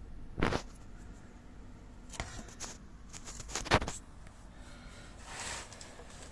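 Handling noises: a thud, then a run of light clicks and knocks with the loudest about three and a half seconds in, followed by a brief rustle.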